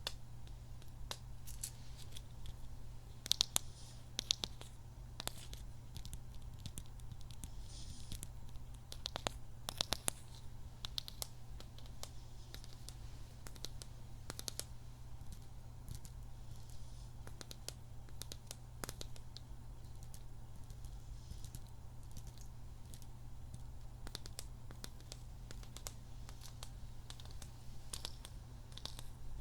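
Scattered close-miked clicks, scratches and rustles of hands handling small objects, loudest in two clusters a few seconds and about ten seconds in, over a steady low hum.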